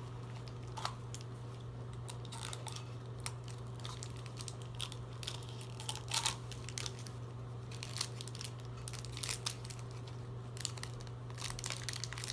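Plastic toy packaging crinkling and tearing as it is opened by hand, in scattered short rustles and clicks. A steady low hum runs underneath.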